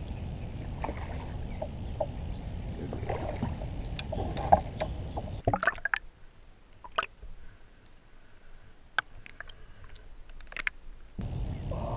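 Water splashing and sloshing around a kayak while a hooked redfish is fought alongside, over a low rumble of wind and water on the microphone. About halfway through, the sound suddenly turns muffled and quiet with scattered sharp clicks as the microphone goes under the water, then the open-air sound comes back abruptly near the end.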